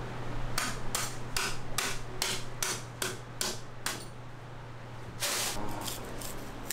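Nine sharp knocks in a steady rhythm, about two and a half a second, from tools striking a large tuna carcass as it is butchered, followed about five seconds in by a longer scraping rush and a few lighter clicks.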